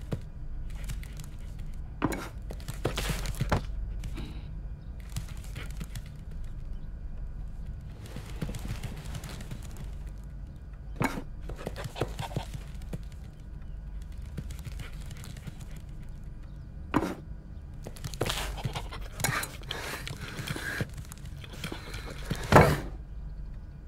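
Cartoon sound effects for a small dog: scattered knocks and thunks, with stretches of scraping and scuffling as it paws under a cabinet and scampers over a tiled floor. The loudest thump comes near the end.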